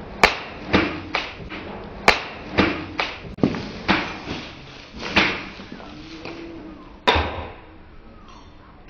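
A forged knife blade chopping repeatedly into a sand-filled plastic bottle standing on a steel post. About ten sharp strikes come at uneven intervals, the loudest about two seconds in and again about seven seconds in.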